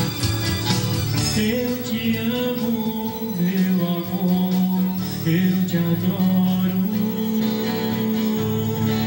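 Live acoustic-electric guitar strummed over long held backing chords, an instrumental passage of a song.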